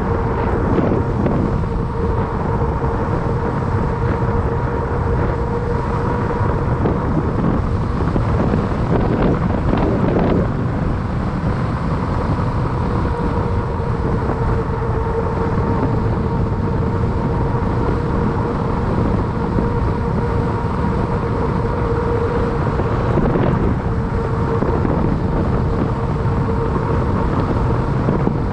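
Fat bike rolling along a paved trail at a steady speed: its wide tyres give a steady hum over the rush of wind on the microphone. The hum fades briefly about ten seconds in, then returns.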